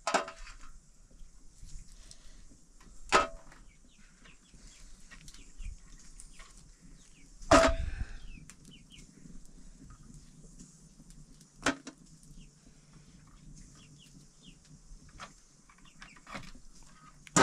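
Chickens clucking now and then, with a few short, sharp calls several seconds apart; the loudest is about halfway through. Faint small-bird chirps and a steady high hiss lie underneath.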